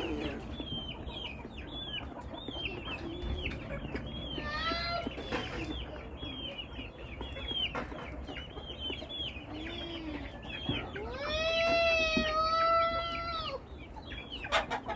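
A chicken flock: constant high peeping with clucking underneath. A shorter call comes near the five-second mark, and a rooster gives one long crow from about eleven seconds in, the loudest sound here.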